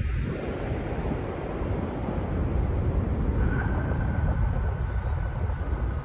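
Jet engine noise from an Airbus A350-900's Rolls-Royce Trent XWB engines: a steady, deep rumble with a faint whine coming in about halfway, buffeted by wind on the microphone.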